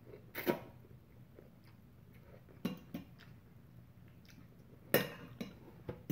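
Metal fork clinking and scraping against a ceramic bowl of ramen noodles, in a few short separate knocks with the loudest about five seconds in. A short noodle slurp comes at the start.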